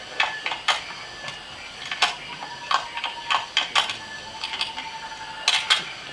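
Film teaser soundtrack playing over cinema speakers: irregular sharp clicks and ticks, several a second, over a faint steady tone that grows clearer in the second half.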